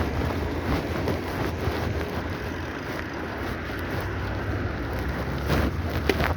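Wind rushing over the microphone and low rumble from a moving bicycle ride, with a couple of sharp rattles near the end.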